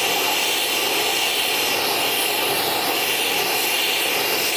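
Oxy-fuel heating torch flame hissing steadily while it heats a steel steering arm red-hot for bending.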